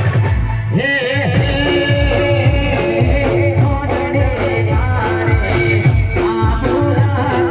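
Loud live music: a heavy, steadily repeating bass beat under a sustained melody line that bends in pitch, over a repeating figure of short notes.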